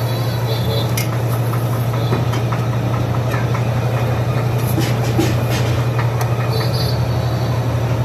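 Busy eatery's background noise: a steady low hum, with scattered light clicks and clatter throughout.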